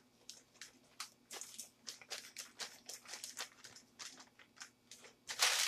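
Plastic piping bag crinkling and rustling in the hands as a serrated tip is fitted onto its coupler, with many small clicks. A louder, denser stretch of crinkling starts near the end.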